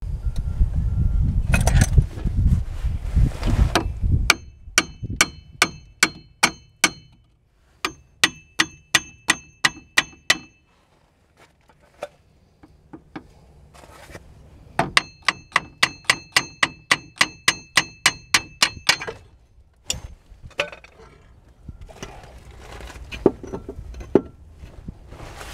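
Rapid metal-on-metal hammer strikes on a van's front steering knuckle, driving it off the old strut. About four ringing clangs a second, in three runs. A low rumble fills the first four seconds.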